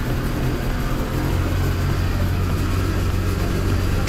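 A vehicle's engine running steadily, with a constant low hum.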